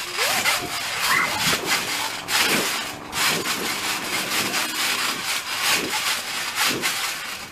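Kids bouncing on a trampoline mat covered in Orbeez water beads: an irregular run of rasping, rustling strokes, several a second, as feet land and the beads scatter across the mat.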